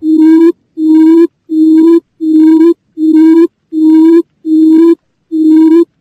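Quail lure call played back: a run of low, hooting notes at one steady pitch, each about half a second long, repeated evenly a little over once a second, with a slightly longer pause near the end.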